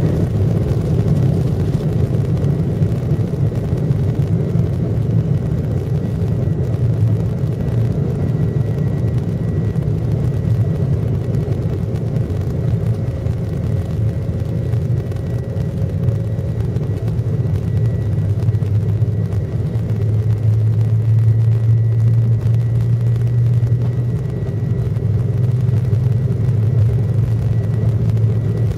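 Jet airliner heard from inside the passenger cabin: a steady low rumble from the engines and airframe, with a faint high whine held under it.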